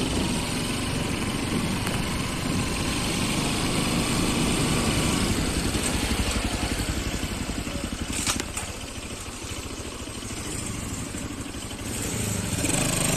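Motorcycle engine running steadily while riding, with hiss over it. The engine eases off about eight seconds in.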